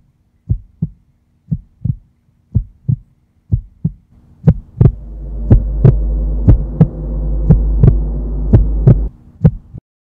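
A heartbeat sound effect: paired lub-dub thumps about once a second, growing louder about halfway through. A low droning hum sounds under the beats from about halfway and cuts off just before the end.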